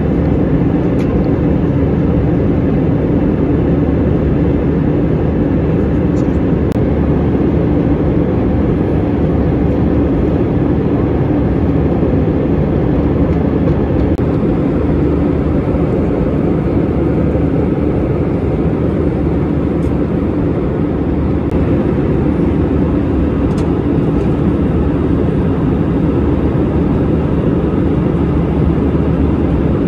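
Steady low rumble of an Airbus A320-200 airliner heard from inside the passenger cabin: engine and airflow noise, with a faint steady hum.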